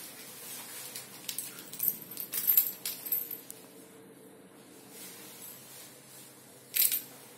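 A metal locker key on a plastic tag and coiled wristband jingling and clinking in the hand, in a run of light clinks between about one and three and a half seconds in. A single sharp click comes near the end, over a steady low hum.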